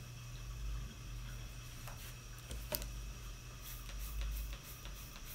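Handheld trigger spray bottle of soapy water spritzing in a run of quick, faint short sprays near the end, after a few light clicks and taps from handling the tile sheet.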